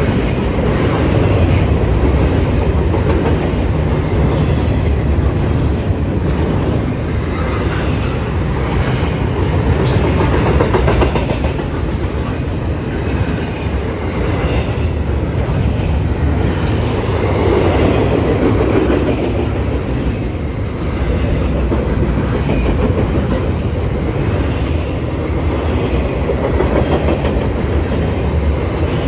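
Double-stack BNSF intermodal freight cars rolling past at speed: a steady loud rumble of steel wheels on rail, with the clickety-clack of wheels crossing rail joints and scattered clanks from the cars.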